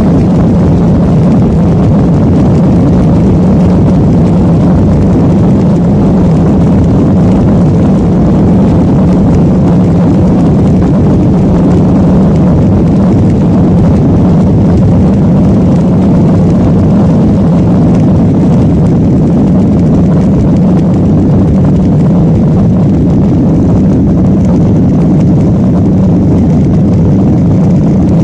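Jet airliner's engines and airflow heard from inside the passenger cabin: a steady, loud rumble with a low hum that holds unchanged throughout.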